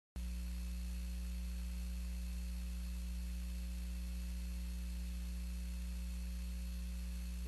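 Steady low electrical mains hum with a few higher overtones and a faint hiss, starting abruptly just after the start: a hum and noise floor in the audio line with no programme sound on it.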